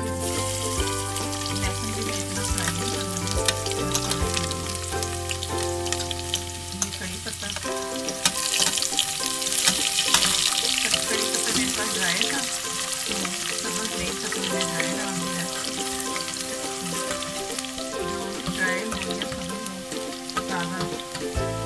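Chopped garlic sizzling in hot oil with cumin seeds and dried red chillies, a tarka being tempered in a steel pot and stirred with a slotted steel spoon. The sizzle swells louder about eight to ten seconds in, then settles back to a steady fry.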